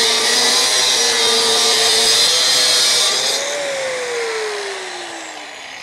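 DeWalt 4-1/2-inch angle grinder with a Diablo diamond cutoff disc cutting through mild steel flat bar, a steady hissing grind over the motor's whine. About three seconds in the cut finishes and the grinding noise stops, and the motor winds down with a steadily falling whine.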